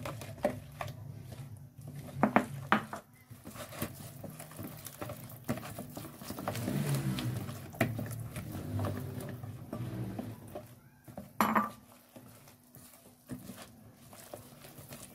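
Cake batter being whisked with a wooden whisk in a plastic mixing bowl as flour is worked in, with scraping and stirring against the bowl. A few sharp knocks of the whisk on the bowl come about two seconds in and again later on.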